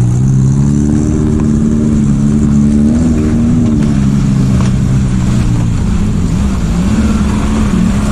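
Off-road vehicle's engine running hard under load, its pitch wavering, dipping about six seconds in and rising again, over a steady low rumble.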